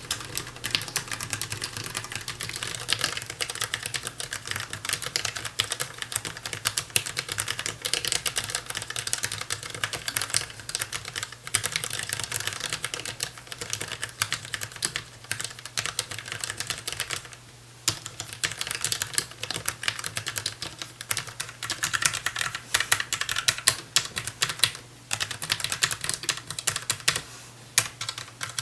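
Fast, continuous typing on a DAREU EK820 low-profile mechanical keyboard with Kailh low-profile red linear switches: a dense stream of key clicks, with a brief pause a little past the middle.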